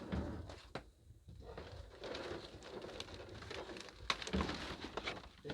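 Footsteps and rustling of people moving through debris, with scattered clicks and knocks.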